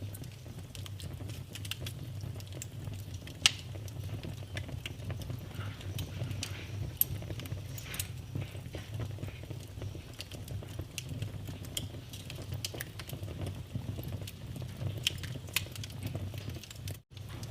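Wood fire in a fireplace crackling, with irregular sharp pops and snaps over a low steady rumble of the flames. Two pops, about three and a half and seven seconds in, are louder than the rest. The sound drops out for an instant near the end.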